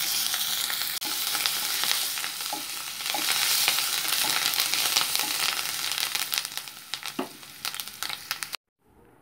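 Fried onions with freshly added turmeric and curry leaves sizzling and crackling in hot oil in a kadai, stirred with a wooden spatula. The sizzle stops abruptly near the end.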